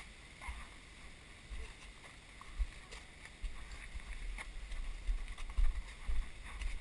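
Walking heard through a GoPro in its housing: dull low thumps and rumble of footsteps and body movement, growing busier and louder about halfway through, with a few faint clicks and scuffs.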